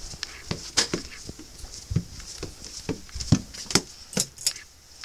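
A run of irregular light knocks and clicks, a dozen or so, from objects being handled close to the microphone.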